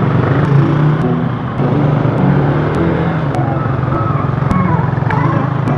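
Motorcycle engine running steadily at low revs, its pitch shifting slightly now and then.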